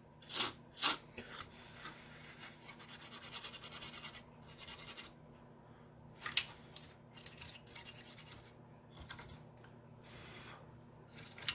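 A brush scrubbing and rubbing over a Commodore 64 circuit board wet with isopropyl alcohol, with a stretch of rapid back-and-forth strokes about two to five seconds in. A few short, sharp scratchy sounds stand out near the start, about six seconds in, and near the end.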